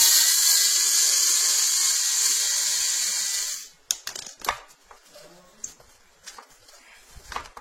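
A loud, steady hiss that starts suddenly and cuts off abruptly after about three and a half seconds, followed by a few light clicks and knocks.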